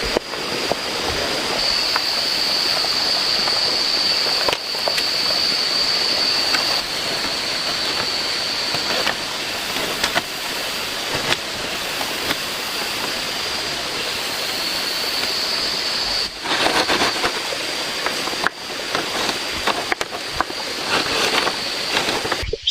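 Steady rushing water, with a thin, steady high whine above it for much of the time and a few sharper, louder moments in the second half. It cuts off suddenly just before the end.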